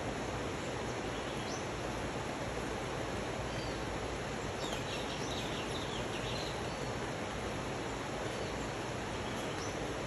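Steady rush of rain on rainforest foliage mixed with a rushing river. A bird gives a quick run of high chirps about five seconds in, with a few single calls elsewhere.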